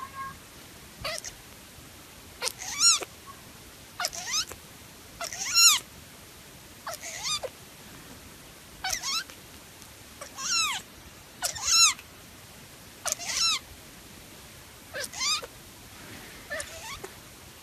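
Young sphynx kitten mewing over and over: about a dozen short, high-pitched mews, each rising then falling in pitch, roughly one every one and a half seconds.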